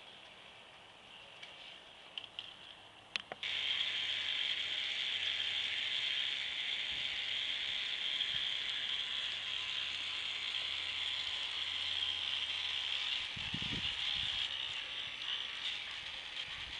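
Plastic K'nex gear trains driven by small 12-volt electric motors, running as a steady whirring with a fast ratcheting clatter of meshing gear teeth. After a few sharp clicks, it becomes much louder about three seconds in.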